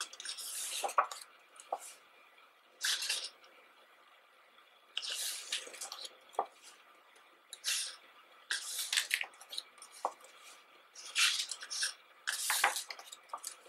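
Pages of a thick photo book turned by hand: a short paper swish every second or two, about seven in all.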